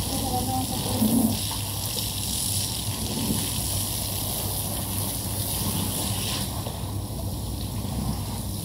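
Water running from a garden hose onto a soaked carpet that is being rinsed: a steady hiss and splatter, over a low steady hum.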